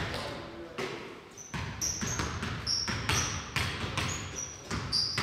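A basketball bouncing on a hardwood gym court in irregular thuds during play, with short high sneaker squeaks from about a second and a half in.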